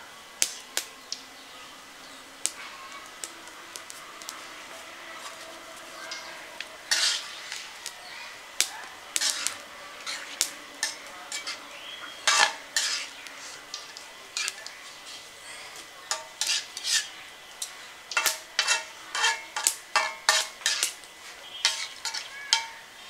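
Metal spatula scraping and knocking against the side of a large metal pot while stirring a simmering fish-head and sour-leaf curry. The strokes come sparsely at first, then thick and fast in the last several seconds, over a faint steady bubbling hiss from the pot.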